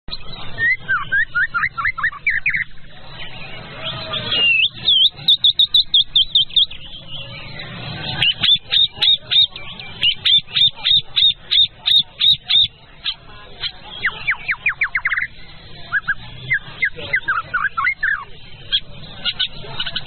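White-rumped shama (murai batu) singing in separate phrases: quick runs of repeated chirping notes and falling whistled sweeps, with short pauses between phrases.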